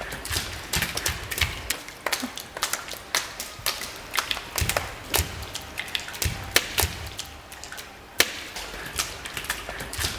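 Summer rain falling, with large drops tapping irregularly on a hard surface, several taps a second, over a faint steady hiss.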